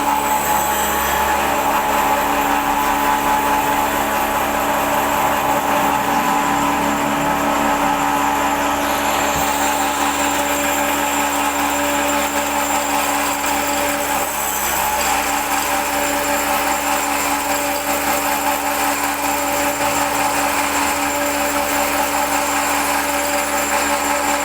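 Automatic camshaft copy machine running: a steady electric motor with a constant whine.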